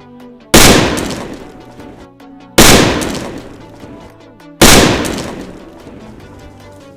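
Three loud firecracker bangs about two seconds apart, each dying away over a second or so, over electronic background music.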